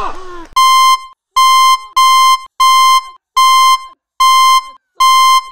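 Electronic buzzer beeping: a run of seven identical high-pitched beeps, each about half a second long and a little under a second apart, the kind of alarm an FPV drone or its radio sounds after a crash.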